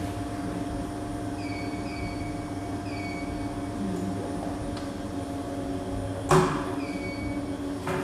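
Steady hum of commercial laundromat machines running, with a few short electronic beeps. About six seconds in comes a single loud thud as a front-loading dryer's glass door is shut.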